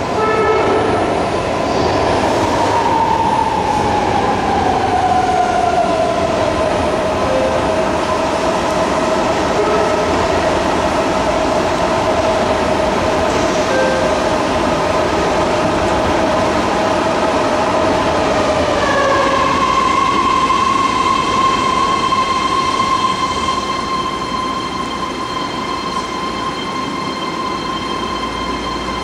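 BART train standing at a station platform, its electrical equipment giving a steady whine over a low rumble. The whine glides down in pitch over the first few seconds and holds, then about two-thirds of the way through it switches to a higher steady whine.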